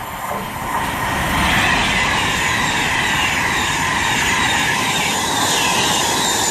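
Class 390 Pendolino electric train passing through non-stop at speed: a rushing of wheels on rail and air that builds over the first second and a half, then holds steady and loud.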